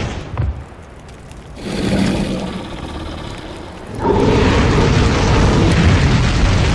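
A sudden deep boom, a second hit about half a second later, then rumbling noise that swells around two seconds in and turns loud and sustained from about four seconds on.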